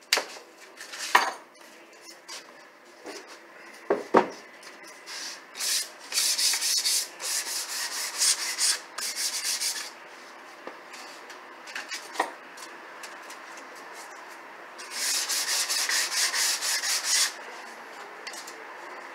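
Hand sanding the painted face of a cabinet door: two runs of quick back-and-forth rubbing strokes, one about four seconds long and one about two seconds long. A few sharp knocks come before and between them, the loudest in the first few seconds.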